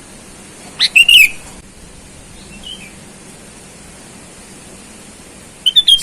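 Sooty-headed bulbul singing: two short phrases of quick, falling notes, about a second in and again at the end, with a faint call between them.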